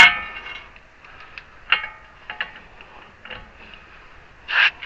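Metal tools and parts clanking against each other. Two sharp strikes ring on briefly, one at the start and one near the two-second mark, with a few lighter clinks between, then two short hissing bursts near the end.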